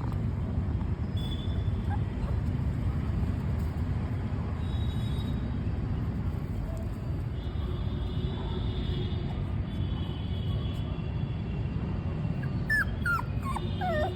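Puppy whimpering: near the end, four or five short, high whines close together, each falling in pitch, over a steady low background rumble.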